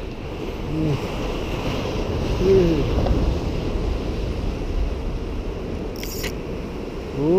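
Steady rush of sea surf with wind buffeting the microphone. A brief sharp rattle comes about six seconds in.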